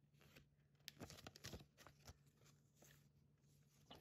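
Faint rustling and light handling of paper cards and a leaflet, a few soft crinkles and taps.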